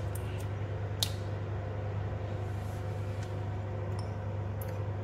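A steady low mechanical hum, like a kitchen fan or appliance, with a few light clicks and taps; the sharpest click comes about a second in.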